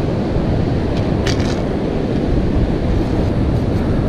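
Strong wind buffeting the microphone in a steady low rumble, with breaking surf underneath; a brief rustle about a second in.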